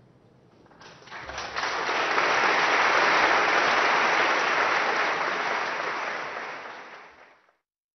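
Audience applauding at the end of an orchestral piece: the clapping breaks out about a second in, swells quickly to a full, dense ovation, then fades and cuts off suddenly near the end.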